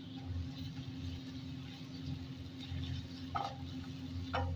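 Wooden spatula stirring onions and ginger-garlic paste in a non-stick wok, with faint scraping and two knocks of the spatula against the pan near the end, a second apart. A steady low hum runs underneath.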